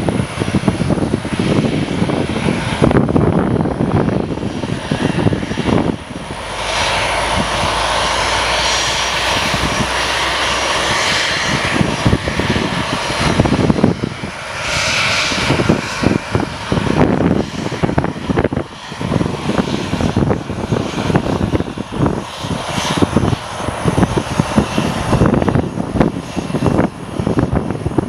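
Jet engines of a Southwest Boeing 737 running as the airliner taxis past close by, a continuous rushing noise that swells and fades, loudest and smoothest near the middle.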